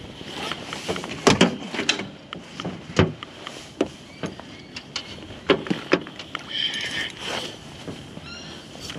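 Irregular sharp knocks and splashes as a fish hooked in the side is landed and thrashes against the boat.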